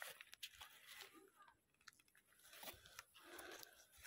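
Near silence with faint scattered clicks and rustles.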